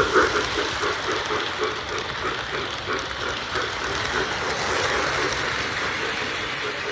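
O gauge model freight train rolling along three-rail track. Steady running and wheel noise, with a rhythmic pulsing near the start that eases off after about a second.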